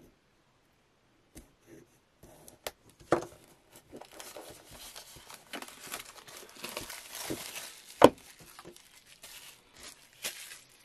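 Clear plastic shrink-wrap being torn and peeled off a pack of paper notebooks, crinkling continuously for several seconds after a few sharp clicks. A single loud knock comes about eight seconds in.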